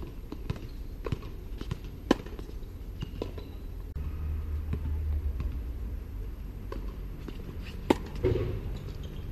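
Tennis ball and racket sounds on a hard court: a string of sharp pocks about every half second in the first two seconds, the loudest about two seconds in, then a sharp racket hit just before the end, over a steady low rumble.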